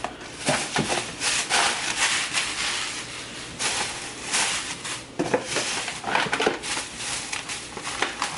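Plastic grocery bags rustling and crinkling in irregular bursts as items are pulled out and handled, over the faint steady hum of a clothes dryer running in the background.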